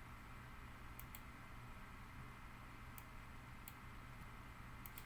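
A few faint computer mouse clicks, some in quick pairs, over a low steady electrical hum.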